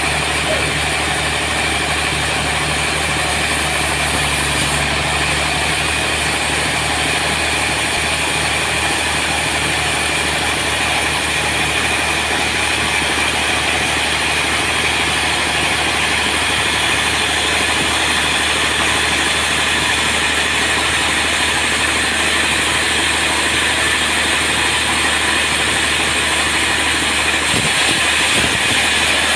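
Sawmill machinery running steadily: a continuous machine drone with a steady high whine over it.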